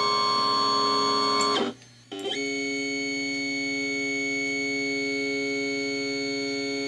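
Silver Bullet cutting machine's stepper motors whining with steady tones as the blade head cuts 1 mm mountboard. The whine stops for about half a second a little under two seconds in, then resumes at a different pitch.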